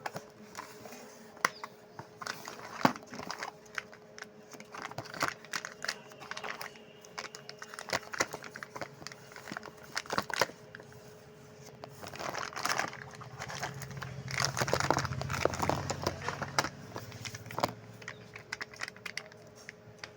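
A plastic sweet wrapper crinkling and crackling as it is handled and opened, with many scattered sharp clicks. A low steady hum sits under it from about twelve to eighteen seconds in.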